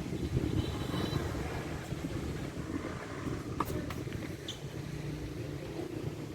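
Steady low rumble of wind on the microphone, with one sharp tennis ball strike about three and a half seconds in and a couple of fainter clicks just after.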